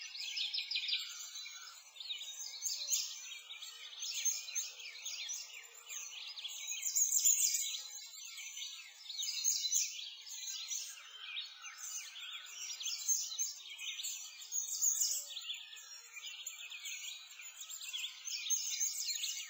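A dense chorus of many songbirds chirping and trilling together without pause, all quick high notes with nothing low beneath them.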